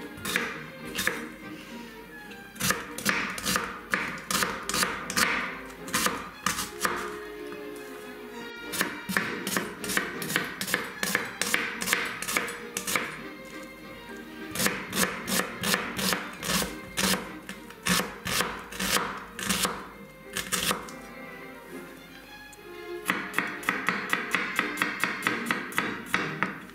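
Chef's knife chopping a red onion, and near the end garlic, on a wooden cutting board: quick runs of sharp knocks on the board, several a second, broken by short pauses. Background music plays underneath.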